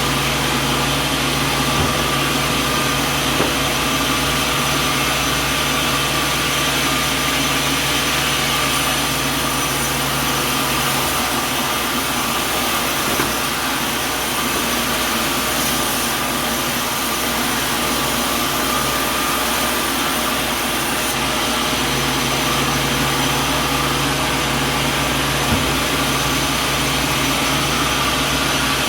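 Sawmill machinery running steadily: a dense, even mechanical din with a low hum that drops away for about ten seconds midway and then returns, and a few light knocks.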